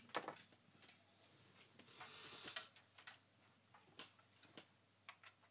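Near silence broken by scattered faint clicks and light knocks, about ten over the few seconds, with a soft rustle about two seconds in.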